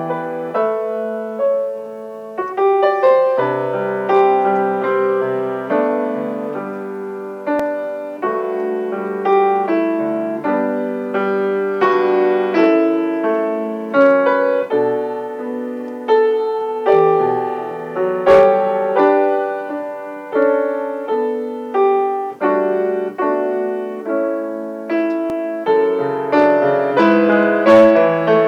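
Solo piano playing a slow, gentle prelude, struck notes and chords that each fade before the next.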